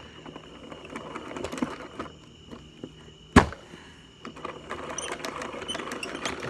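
Plastic hand-crank mixer of a toy slime-making kit being turned, its gears rattling and scraping as it churns the slime. One sharp knock comes about three and a half seconds in.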